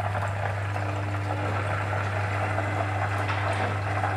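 A whole chicken deep-frying in hot oil in a pot, a steady crackling sizzle as it is lifted out with tongs, over a steady low hum.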